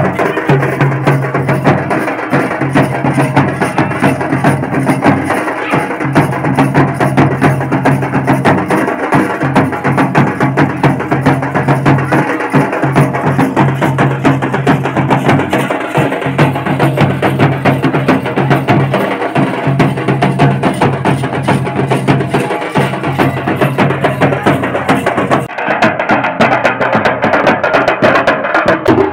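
Several double-headed barrel drums (dhols) beaten by hand and stick in a fast, steady rhythm of many strokes per second, accompanying a procession dance.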